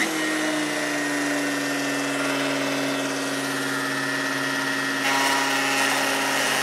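Electric router in a router table starting up and running with a steady whine while trimming the edges of a Formica-laminated countertop; the sound gets louder and harsher about five seconds in.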